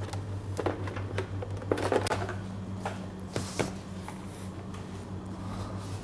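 Handling noise: a few scattered knocks and clatters as a plastic bowl of softened butter is carried and handled, mostly in the first few seconds, over a steady low hum.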